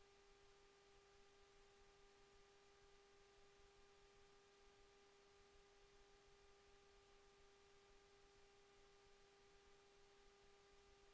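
Near silence with a faint, steady electrical hum: one unchanging tone with its overtones, over a low hiss.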